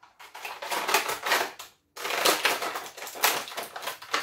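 Clear plastic packaging crinkling and crackling as an action figure is handled and pulled free of it, in two spells with a short break about two seconds in.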